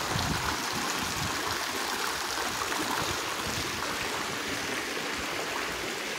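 Steady splashing of water from many arcing pool deck jets falling into the pool.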